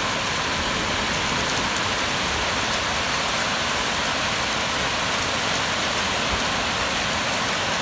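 Heavy rain falling steadily during a thunderstorm, an even hiss with faint patters of drops and no thunder.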